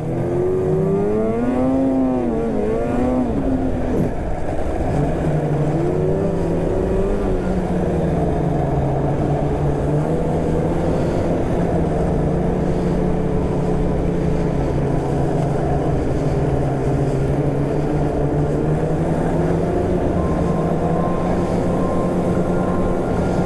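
Polaris snowmobile engine running as the sled rides along, its pitch rising and falling with the throttle a few times in the first several seconds, then holding fairly steady.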